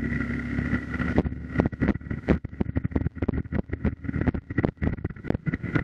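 Hero XPulse 200 4V single-cylinder motorcycle riding along, its engine running with a steady whine for about the first second. After that, dense irregular knocks and rattles take over.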